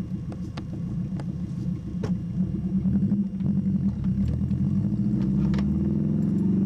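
Subaru flat-four engine working hard up a rough dirt hill climb, heard from inside the cabin, its note climbing from about five seconds in as it revs up. A few sharp knocks and rattles come through as the car goes over the ruts.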